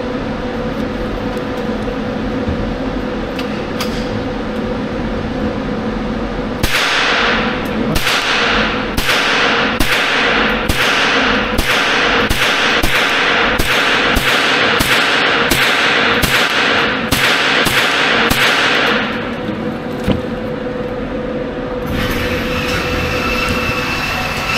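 Rapid string of rifle shots from an AR-style semi-automatic rifle, about two dozen at roughly two a second, each with a short ringing echo off the indoor range walls. The shots begin about seven seconds in and stop about nineteen seconds in, over a steady hum.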